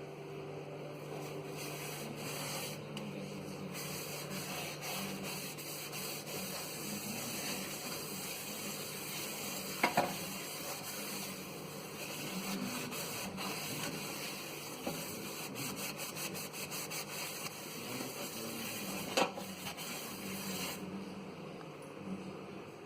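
Cloth wiping and rubbing the microwave's surfaces with cleaning solution, a steady scrubbing noise, with two short knocks about ten seconds in and near the end.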